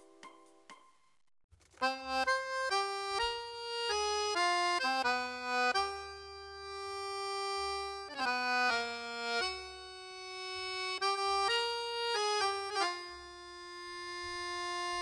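Background music: a melody of held and quick notes that starts about a second and a half in, after the faint tail of earlier notes dies away.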